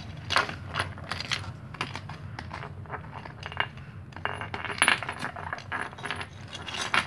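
Small glass bottle and a plastic Woody doll being handled together: irregular light clicks, knocks and clinks of glass against plastic.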